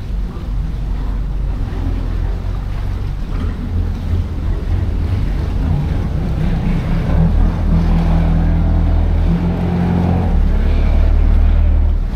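Boat engine running with a steady low drone, under wind and water noise, growing louder toward the end.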